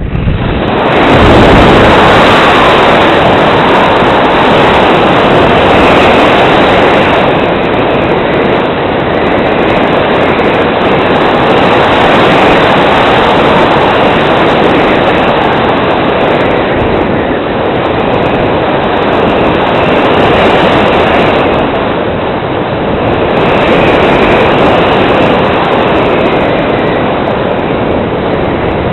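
Steady rush of airflow over the onboard camera of a Valenta Dragon model glider in flight, swelling and easing every few seconds.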